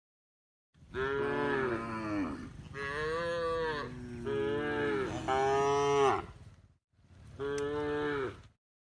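Cows mooing: a run of about four long moos, some overlapping, then after a short break one more moo near the end.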